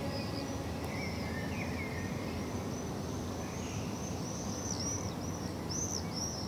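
Outdoor ambience of small birds chirping: short, high-pitched chirps repeating every half second or so over a steady low background noise, with a few lower twittering calls in the first couple of seconds.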